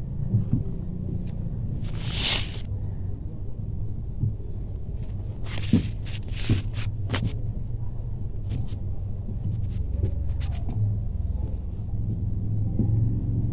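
Cloth rustling as fabric and a blouse are handled and smoothed out, with short rustles about two seconds in and again around six seconds and a few light clicks, over a steady low rumble.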